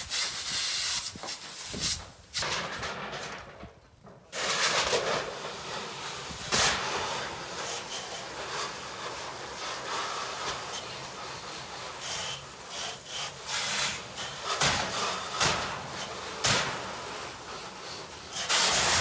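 A fire hose jetting water onto burning debris, a rushing hiss that swells and drops as the stream moves. Gusts of wind buffet the microphone with irregular low thumps, and there is a brief lull about three seconds in.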